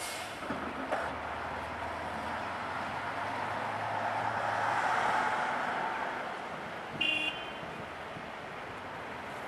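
JCB 541-70 telehandler unloading soil into a steel dump-truck body: two knocks in the first second, then the diesel engine rises and falls over several seconds as the empty bucket is lifted and the machine moves off. A short beep sounds about seven seconds in.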